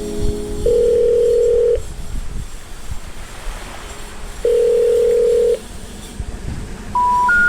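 Telephone signal tones: two long steady tones of about a second each, a few seconds apart, then three short beeps rising in pitch near the end, like the telephone network's 'number not reachable' information tone.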